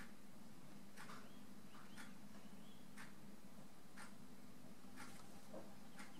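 Clock ticking faintly, one tick a second, over a steady low hum.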